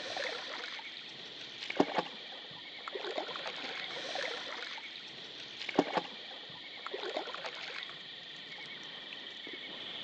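Canoe paddle strokes in river water: repeated dips and swishes, with two sharper strokes about four seconds apart, over a steady high hiss.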